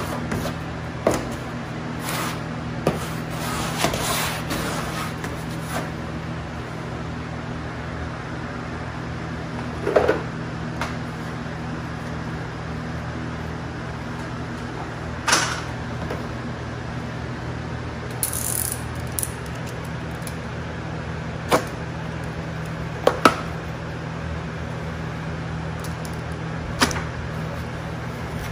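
Scattered short knocks, clicks and brief scrapes of a plastic wallpaper smoother being worked over cork wallcovering, over a steady low hum.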